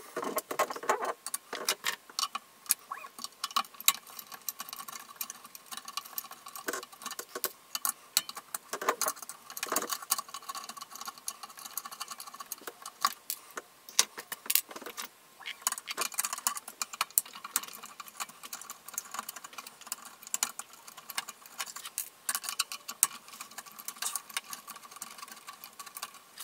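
Rapid, irregular clicking and clinking of pliers and small metal parts (nuts, spacers and bed clips) as they are worked off a 3D printer's aluminium bed plate, sped up four times.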